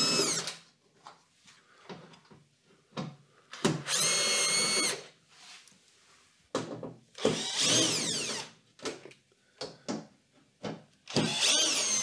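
Bosch cordless drill-driver backing out screws, its motor whining in short runs: one ending just at the start, then three more of about a second or two each, spaced roughly three seconds apart. Small clicks and knocks come between the runs.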